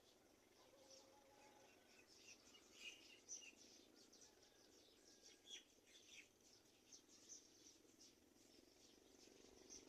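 Faint, high bird chirps: many short calls at irregular intervals over a low steady background hiss.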